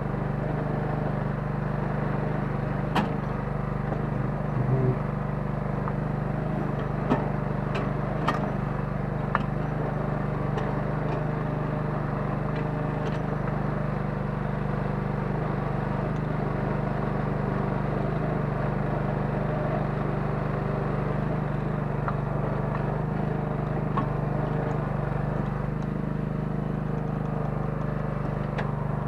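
Small 9 hp engine of a Kellfri towable mini excavator running steadily under digging, with a few sharp knocks and clicks from the work.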